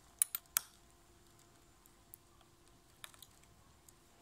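10 mm spanner clicking on the nut and screw as they are unscrewed from the tent hub's top plate: three sharp clicks in the first half second, then a few fainter ones about three seconds in.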